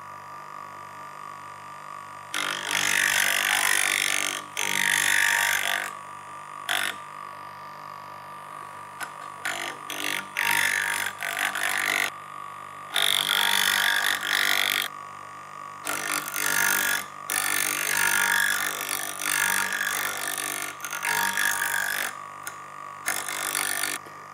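Grinding machine running with a steady hum while a steel chisel is pressed to the grinding wheel again and again, each contact a burst of hissing grinding noise lasting from a moment to several seconds. The chisel's bevel is being ground dry, without water cooling.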